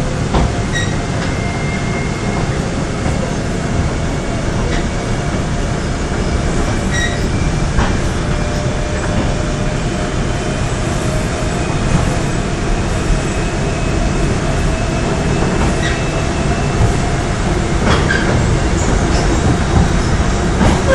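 Korail series 3000 electric subway train running at speed, heard from inside the car: a steady low rumble of wheels and running gear with a faint steady whine, and scattered sharp clacks from the track.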